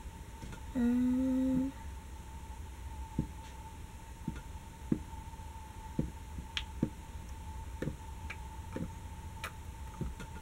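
A woman hums one short, steady note about a second in. Otherwise there are faint scattered clicks and taps as plastic squeeze bottles of window paint are handled and squeezed, over a faint steady high tone.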